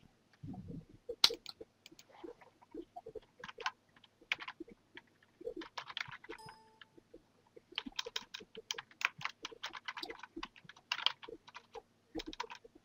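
Typing on a computer keyboard: scattered key clicks at an uneven pace, coming thicker and faster in the second half.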